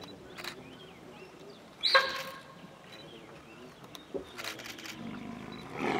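Bengal tigers growling while mating, with one short, loud snarl about two seconds in and rougher growling near the end.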